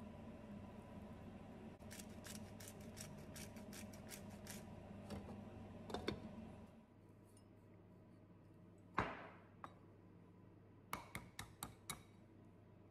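A hand-twisted salt grinder clicking rapidly, about four clicks a second for a few seconds, over a steady hum. A clink follows. Later there is one sharp knock that rings briefly, then four or five quick taps of an egg against the rim of a ceramic bowl as it is cracked.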